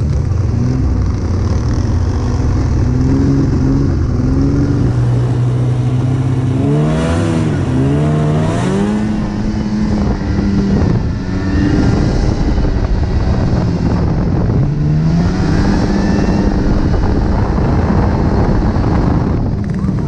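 Snowmobile engine running under the rider, revving up about seven seconds in and holding a higher pitch, then easing off and picking up again near the middle. It pushes through deep snow, with wind noise on the microphone.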